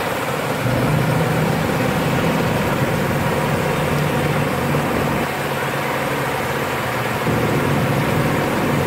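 A motor vehicle's engine running steadily: a continuous low hum under an even rush of noise.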